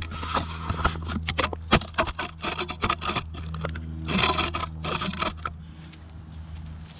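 Electric RC truck driving on gravel around a steel-mesh ramp: gravel crunching and scraping under spinning tyres, with a quick, irregular run of knocks and clatters that dies away after about five seconds.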